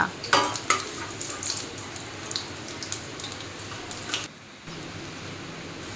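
Batter-coated stuffed spiny gourd fritters deep-frying in hot oil in a steel kadai: steady sizzling with many small crackles and pops. The sound dips briefly a little past four seconds in.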